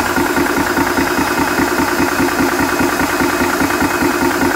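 Portable 12V/220V 300-bar PCP air compressor running under load while filling a high-pressure air bottle: a steady, fast, even pumping pulse of its piston.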